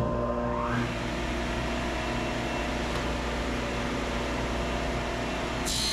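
Sliding table saw running steadily at speed. Near the end a higher hiss joins in as the blade begins cutting into a sheet of half-inch plywood.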